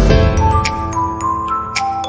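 Background music: an upbeat electronic tune, a melody of held notes stepping up and down over a light, regular ticking beat.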